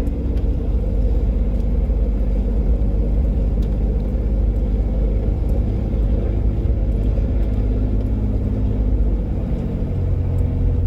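Jeep Wrangler engine running steadily at low speed while climbing a dirt trail, a continuous low rumble. The engine note shifts a little about eight seconds in.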